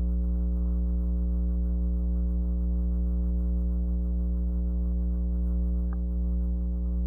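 Steady electrical hum with a stack of evenly spaced overtones, unchanging in pitch and level throughout.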